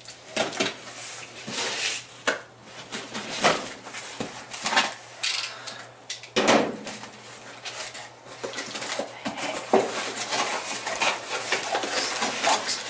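Cardboard shipping box being cut open and unpacked by hand: irregular rustling, scraping and crackling of cardboard and packing, with one louder burst about halfway through.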